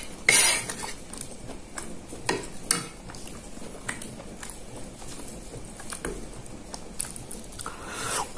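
Metal spoon scraping and clinking against a ceramic plate while scooping peanut sauce, loudest just after the start. A few sharp clicks follow, then lighter scattered taps as bamboo satay skewers are handled over the plate.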